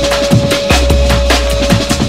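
Drum and bass record playing on a turntable: fast breakbeat drums over deep sub-bass, with one long held synth note through most of it.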